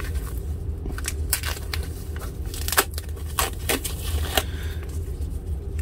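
Thin foam packing sheet crinkling and rustling as hands wrap a small part in it, an irregular run of crackles with a few sharper ones.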